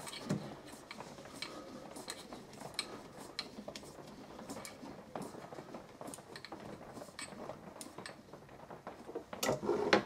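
Light, irregular metallic clicks and ticks from the Drummond Mk2 hand shaper as its head is adjusted by hand. A louder clatter of metal comes near the end.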